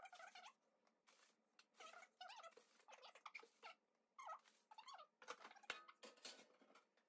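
Faint scrapes and light taps as a metal spatula slides under baked meringue biscuits on baking paper and sets them down on a wire cooling rack.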